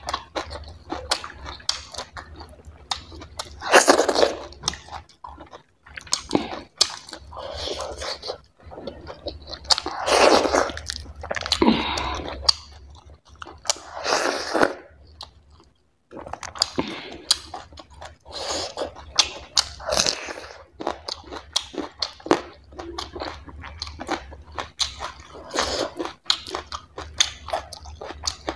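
Close-miked mouth sounds of eating chicken curry and barley dhido by hand: irregular chewing, crunching and wet smacks, with fingers being sucked clean about halfway through. The sound breaks off briefly just past the middle.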